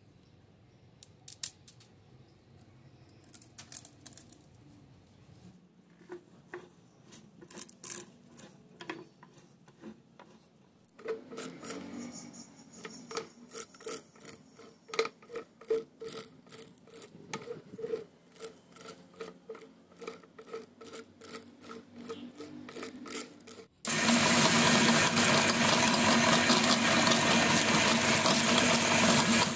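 Dry instant-noodle blocks crackling and clicking as they are broken and pushed into a steel meat grinder's hopper, the crackle growing dense about halfway through. About three-quarters of the way in, the electric meat grinder's motor starts suddenly and runs loud and steady, grinding the dry noodles.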